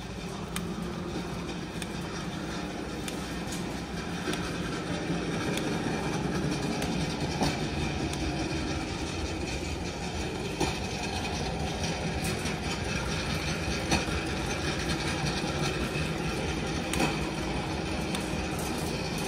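Empty wire shopping cart rolling across a smooth concrete store floor: a steady rumbling rattle from the wheels and the wire basket, with a few sharper knocks.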